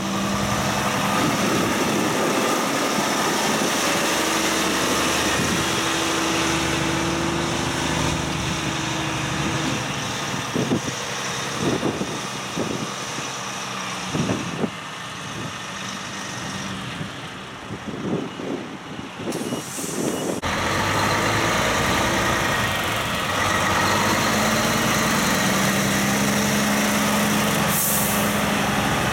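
Heavy trucks' diesel engines running, a steady low drone. About two-thirds of the way through it changes abruptly to a different truck's engine idling.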